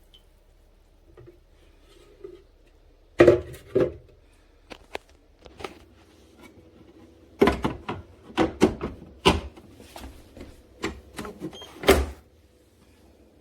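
Irregular knocks and clatters of objects being handled: a pair about three seconds in, then a busy run of them from about seven and a half to twelve seconds, the loudest near the end.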